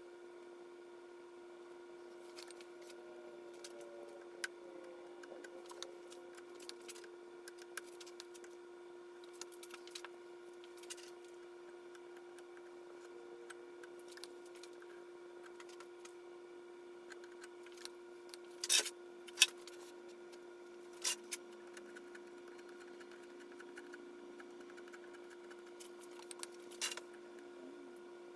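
Scattered light clicks and taps of hand tools working around a glass panel during glazing, over a steady hum. A few sharper clicks come about two-thirds of the way through and again near the end.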